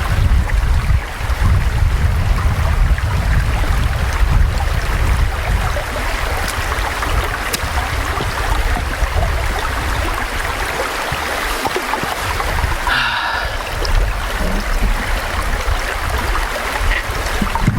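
Steady rushing of flowing water, with a heavy low rumble underneath. About two-thirds of the way through, a brief high-pitched sound cuts in.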